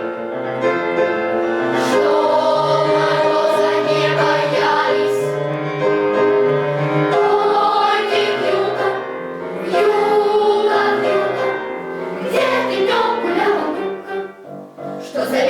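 Children's choir singing a song together with accompaniment, the voices briefly dropping away near the end as a phrase closes.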